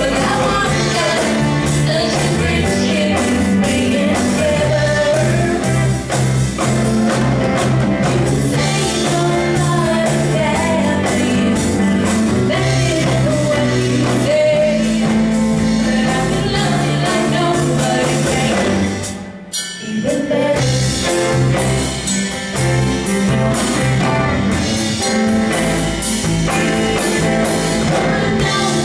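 A woman singing lead with a live band of drum kit, electric guitars, bass and keyboard playing behind her. The music breaks off briefly about two-thirds of the way through, then carries on.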